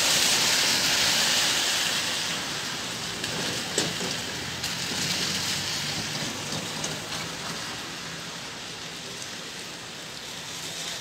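Heavy rain falling in a steady hiss, strongest in the first couple of seconds and easing slightly after. There is one sharp tap about four seconds in.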